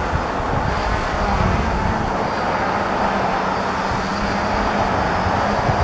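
Hexacopter's motors and propellers droning steadily as it comes back in to land, with a low buffeting rumble on the microphone.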